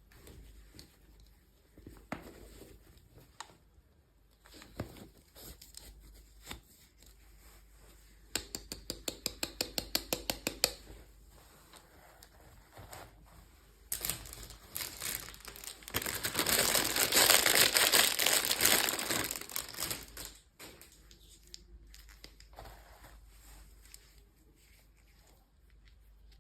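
Plastic packaging being crinkled and torn open by hand. It includes a quick run of even clicks, about six a second, and a loud, longer spell of crinkling and tearing about two-thirds of the way through.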